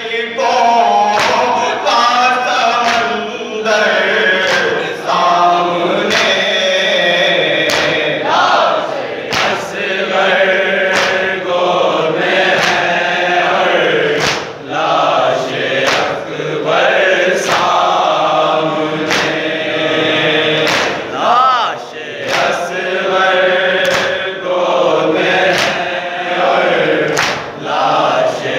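Several men chanting a noha, an Urdu lament for the martyrs of Karbala, in slow melodic lines with the group joining in. Sharp slaps come about once a second throughout: hands beating on chests (matam) in time with the lament.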